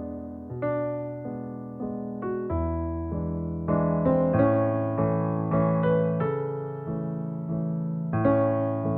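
Solo piano ballet class accompaniment for tendus, playing a melody over bass notes in a steady pulse, each note struck and fading.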